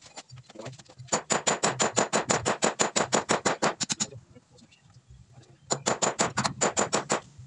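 Steel hammer tapping rapidly on a metal point held against the wall, each blow ringing sharply, metal on metal. It is quick, about nine taps a second, in a run of about three seconds, then stops and resumes for a shorter run near the end.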